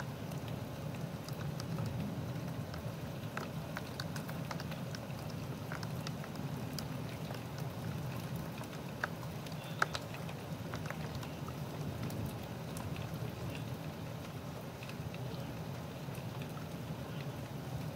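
Steady thunderstorm rain, a continuous wash of noise with scattered sharp drip ticks. Two louder ticks come about halfway through.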